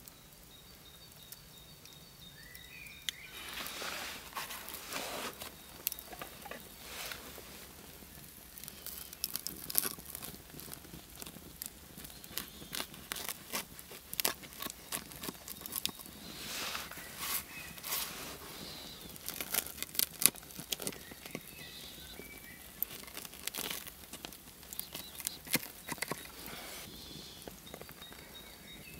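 A knife cutting into a crusty fire-baked loaf of bread, then prying it apart: the crust crunches and crackles in irregular clusters of sharp clicks. It starts about three seconds in.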